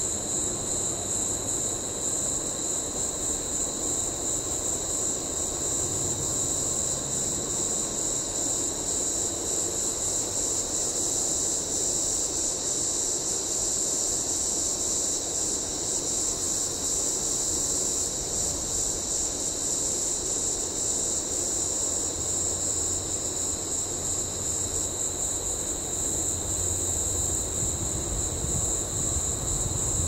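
Steady high-pitched chorus of late-summer insects, such as crickets, holding one bright high pitch with a fainter lower tone beneath it, over a faint low rumble.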